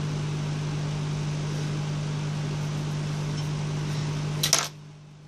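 Steady electrical fan hum with a low mains buzz, from the soldering bench equipment. A couple of sharp clicks come about four and a half seconds in, and the hum then drops away near the end.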